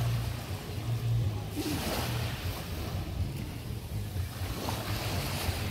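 Small waves lapping and washing onto a pebble beach, with two louder washes, about a second and a half in and again near the end, over a steady low rumble.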